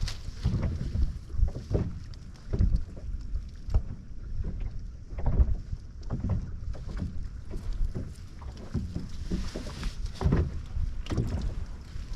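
Water lapping and slapping against a boat's hull in irregular knocks and surges, with wind buffeting the microphone.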